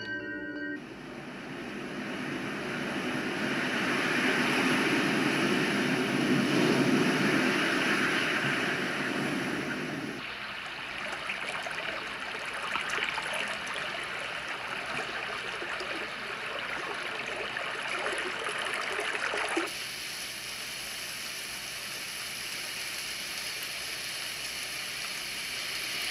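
Yogasleep Whish sound machine switched from its chimes track to a recorded water-and-surf nature sound just under a second in, heard as a steady rushing hiss through its small speaker. The rush is fullest for the first ten or so seconds. It thins as the lower part drops away, and changes again near twenty seconds.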